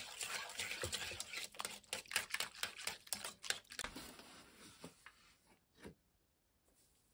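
Wire whisk beating liquid pancake batter in an enamel bowl: a fast run of metal clicks and scraping that stops about three and a half seconds in. A few softer clicks and rustles follow, then it goes quiet.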